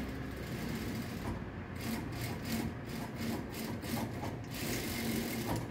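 Hand sliding and smoothing layers of fabric across the sewing table: a run of short brushing rubs, about three or four a second, then a longer rustle near the end as the cloth is pushed under the presser foot.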